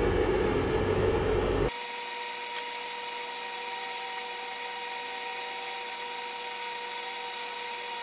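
A loud, rough rumbling noise cuts off abruptly after about a second and a half. A quieter, steady machine hum with a constant whine follows.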